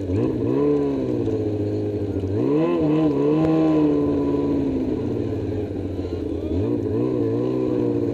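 Snowmobile engine running, heard from the rider's seat, its pitch rising as the throttle opens three times: right at the start, about two and a half seconds in, and about six and a half seconds in, holding steady in between.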